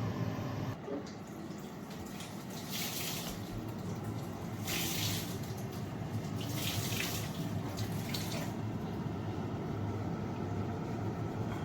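Water running from a kitchen tap in several short bursts, each a second or less, over a steady background noise.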